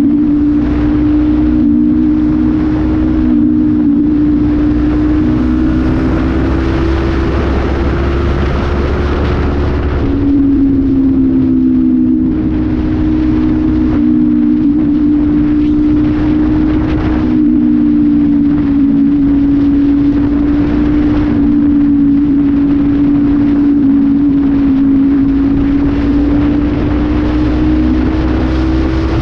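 Honda CB500F's parallel-twin engine, breathing through an aftermarket exhaust, running steadily as the motorcycle is ridden on the road, with wind rushing over the microphone. The engine note steps down about ten seconds in, then slowly climbs again.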